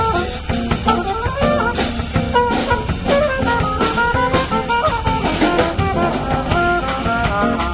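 Live Latin jazz from a trio: a trumpet plays a moving melody over a drum kit with cymbals and a strummed acoustic guitar.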